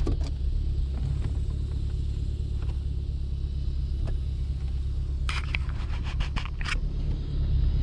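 2010 Chevrolet Camaro SS's 6.2-litre V8 idling steadily with a low rumble. A quick run of clicks and rattles comes about five to seven seconds in.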